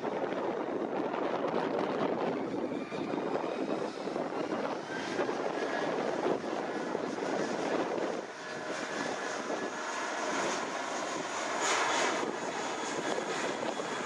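Airbus A320's IAE V2500 turbofan engines at take-off power, a steady jet roar with faint high whine tones running through it.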